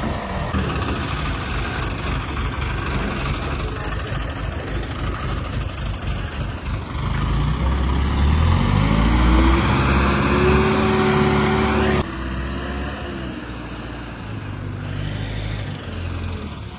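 Tractor engine running, revving up about halfway through and dropping back abruptly a few seconds later, then running on more quietly.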